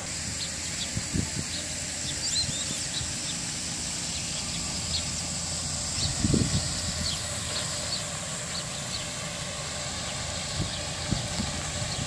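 Outdoor ambience: a steady hiss with faint, short high chirps scattered throughout and a few low bumps, the loudest about six seconds in.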